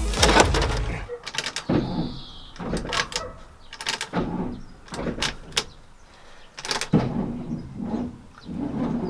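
Irregular metal clanks, knocks and scrapes of hand work dismantling an old Tatra truck's battery box and steering column, with a short squeak about two seconds in.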